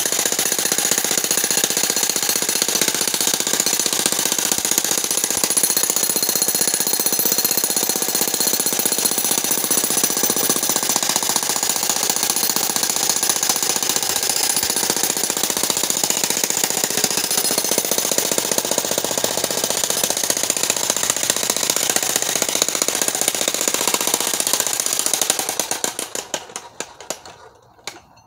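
Corded electric demolition hammer (jackhammer) breaking rock, a steady rapid pounding of the chisel into stone. Near the end it winds down and stops, leaving a few weaker knocks.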